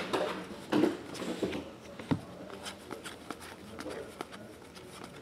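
Trading cards being flipped through by hand, card stock sliding and snapping as each card is moved to the back of the pack. A couple of louder snaps come in the first half, then lighter, sparser clicks.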